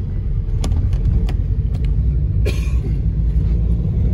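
Steady low engine and road rumble heard from inside a moving road vehicle, with a few light clicks and a short hiss about two and a half seconds in.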